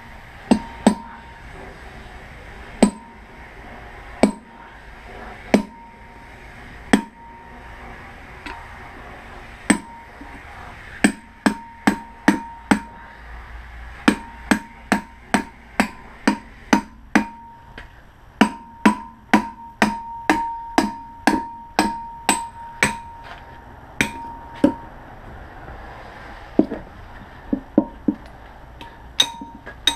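Hammer striking a steel chisel against an electric motor's stator, driving out the copper windings. The sharp metallic blows each ring briefly. They come slowly at first, speed up to about two a second through the middle, and thin out to a few lighter taps near the end.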